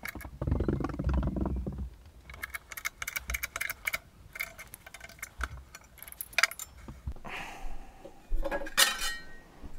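Metal clinking and rattling as sheet steel is handled and set in a homemade bottle-jack press with square-tube jaws. Runs of quick clicks, a short hiss about seven seconds in, and a ringing metal clatter near the end.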